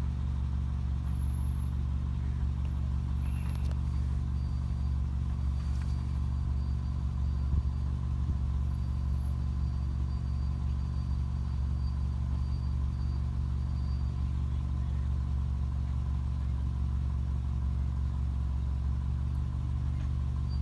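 Vehicle engine running steadily, a constant low drone heard from inside the cab, with one small knock about a third of the way in.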